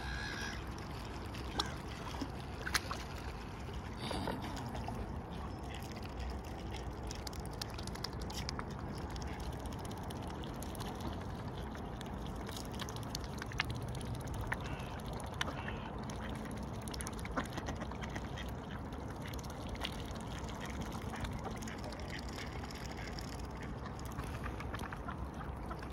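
Waterfowl calling, with honks and quacks, and scattered short clicks over a steady low background rumble.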